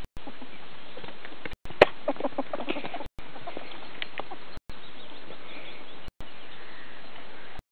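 Ferrets dooking: quick runs of soft clucking chuckles, the sound ferrets make when excited at play. The loudest run comes about two seconds in and opens with a sharp knock.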